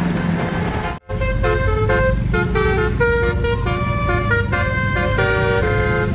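Basuri multi-tone 'telolet' bus horn playing a quick tune of short stepped notes, starting just after a brief dropout about a second in, with an engine running low underneath.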